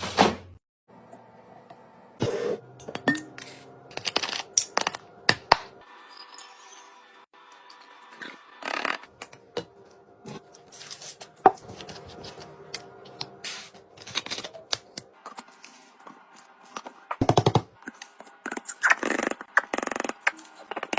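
Irregular knocks, taps and scrapes of food containers and packaging being set into and moved around a refrigerator, with a few longer scraping sounds near the end.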